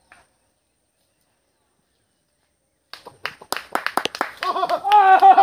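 About three seconds of dead silence, then a run of sharp clicks followed by loud, high-pitched human yelling with its pitch rising and falling.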